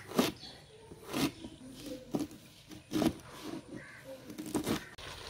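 Chef's knife slicing ginger on a wooden cutting board: about half a dozen separate knocks of the blade on the wood, roughly a second apart, with two close together near the end.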